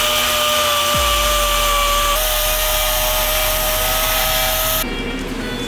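Pneumatic random orbital sander running on sheet metal: a steady high whine over a hiss of exhaust air. The pitch steps slightly about two seconds in, and the sander stops about five seconds in.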